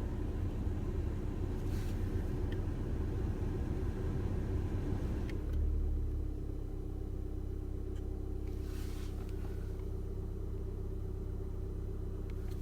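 Volkswagen Passat B7 running with a steady low rumble and a few steady low hum tones. About five and a half seconds in, the rumble swells briefly and then settles a little quieter. It carries the odd noise the owner is asking about, not identifiable more closely.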